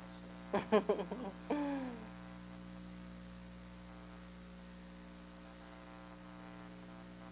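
Steady electrical hum, a low even drone. It is broken about half a second in by a short spoken word or two lasting under two seconds.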